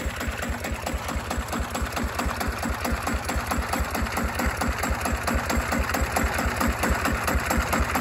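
Single-cylinder diesel engine of a small 25 hp crawler tractor idling steadily, chugging at about six beats a second, a little louder near the end.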